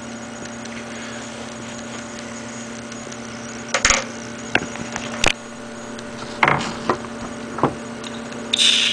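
Steady low hum with a handful of short, sharp clicks and knocks scattered through it. At the very end a high sound begins and slides down in pitch.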